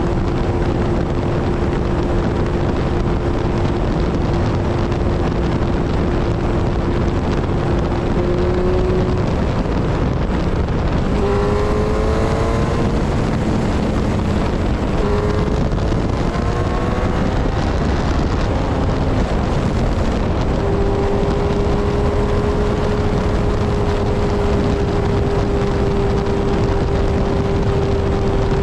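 Kawasaki Z1000's inline-four engine and exhaust at a steady highway cruise, with heavy wind rush on the microphone. About ten seconds in, the revs climb twice in quick pulls, then settle back to a slightly higher steady cruise.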